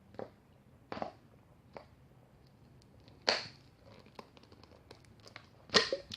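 A plastic drink bottle being handled, giving several short crinkles and rustles, with two louder ones about three seconds in and near the end.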